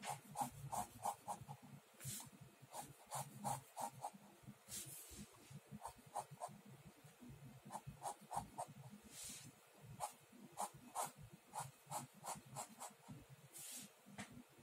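Ballpoint pen drawing on paper: short scratchy strokes in quick runs, with a few longer swishing lines.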